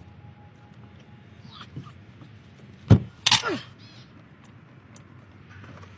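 A single sharp thump about three seconds in, followed at once by a short scraping noise with a falling squeak.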